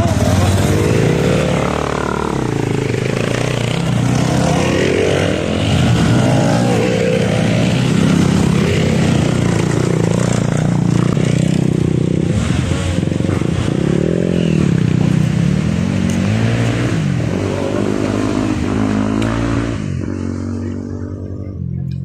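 Several off-road dirt bikes riding past on a dirt trail, their engines revving up and down in pitch as they climb, then fading away near the end.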